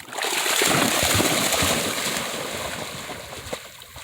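A dog splashing into creek water: a loud splash that swells just after the start and dies away over about two seconds.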